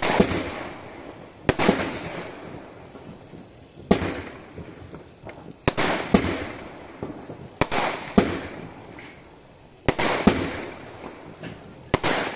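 Aerial firework shells bursting one after another, about ten sharp bangs, some in quick pairs, each followed by a fading crackle.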